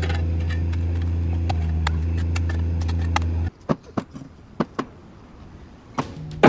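An engine running steadily, with scattered knocks and scrapes of a shovel and concrete blocks over it. It stops about three and a half seconds in, leaving separate clunks of concrete retaining-wall blocks being set into a mini track loader's bucket, with one loud knock at the end.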